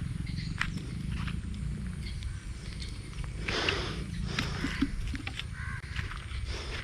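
A single harsh animal call about halfway through, over a steady low rumble and a few light clicks.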